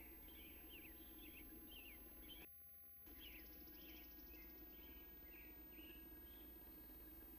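Faint birdsong outdoors: a run of short chirping notes, a few a second, over a steady low hum. All sound cuts out for about half a second a little over two seconds in.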